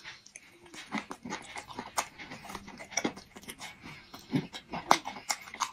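Close-miked chewing: a mouth eating food held in the fingers, making irregular wet clicks and smacks.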